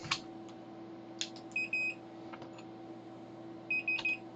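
Multimeter continuity beeper giving short, broken beeps in two brief clusters as the probes touch across a fuse, showing the fuse conducts and is good. A few faint clicks of the probes come between the beeps.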